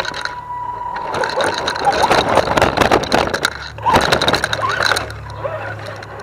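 Axial SCX10 DeadBolt RC crawler driving over rough ground: the 27-turn electric motor and gear drivetrain whine steadily, with a dense run of rapid clicks and rattles from the tyres and chassis on the ground through the middle, and the whine's pitch rising and falling near the end.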